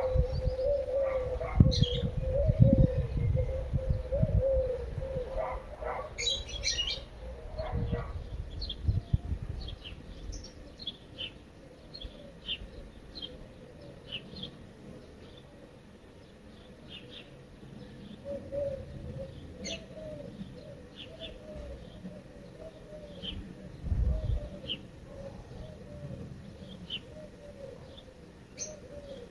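Pigeons cooing in a low, wavering series, with small birds giving short high chirps over it. Low thumps or rumbles come through in the first few seconds and once more near the end.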